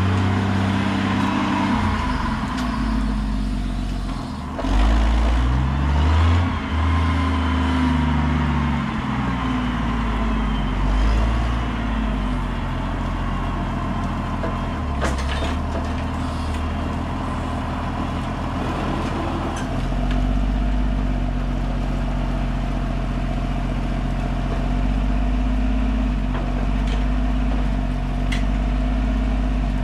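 An engine running, its speed shifting up and down in steps.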